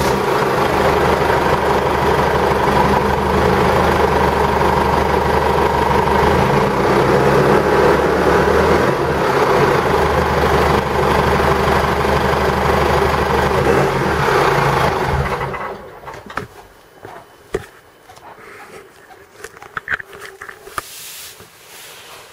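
Holden RG Colorado's four-cylinder turbo-diesel idling loudly through a straight dump pipe with the muffler removed, the steady exhaust drone that the owner is sick of. The engine is switched off about two-thirds of the way through, leaving only faint clicks.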